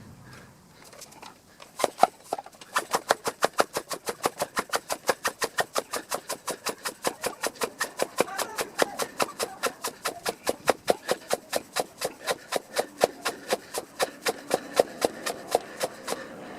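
Bicycle pump inflating a tubed bicycle tyre, with fast, even pumping strokes that start about two seconds in and keep a steady rhythm.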